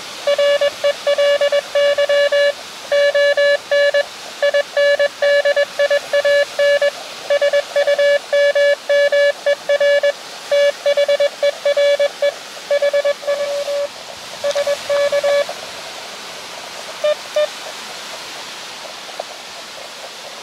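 Morse code (CW) coming from an Elecraft KX2 transceiver: a single mid-pitched tone keyed on and off in fast dits and dahs over a steady hiss. It is the other station sending its closing message. The sending stops about fifteen seconds in, with a couple of faint beeps shortly after.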